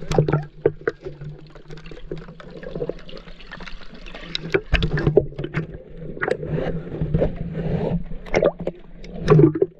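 Water sloshing and splashing around an action camera held half in, half out of the water, with many short sharp splashes over a steady low hum.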